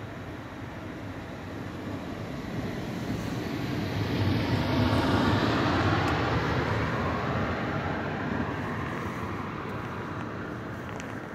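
SBB IC 2000 double-deck passenger coaches rolling along the platform at low speed, the steady rumble of wheels on rail swelling about midway and fading again.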